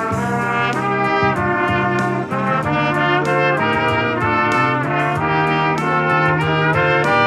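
Trumpet trio playing in harmony: a lead melody moving note to note over sustained lower parts.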